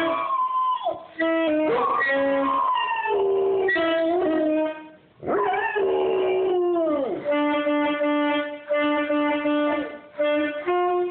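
A saxophone playing held notes and short phrases while a dog howls along, its howls sliding up and then falling away in pitch, the longest one about five seconds in.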